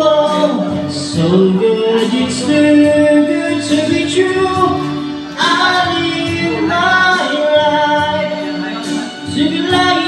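A man singing into a microphone over instrumental accompaniment, his voice amplified, with several long held notes.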